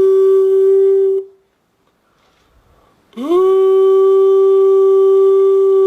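Handmade wind instrument in a pre-Hispanic Mexican style, sounding clean, steady, pitched notes. One note breaks off about a second in. After a short pause, the next note swoops upward in pitch and is then held steady.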